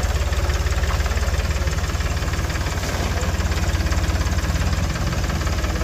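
Tractor diesel engine idling steadily, with a rapid, even low chugging.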